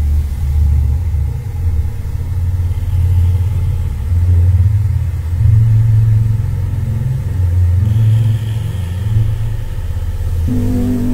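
Deep, low rumbling drone of dark horror ambience, swelling and fading in slow waves. Near the end, sustained low notes of eerie music come in over it.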